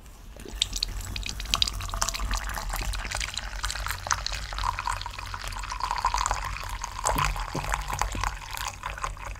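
Water being poured into a teapot to brew tea: a continuous splashing pour with many small drips and spatters.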